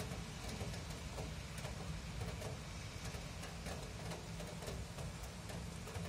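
Steady rain falling, with close drips ticking irregularly on a hard surface.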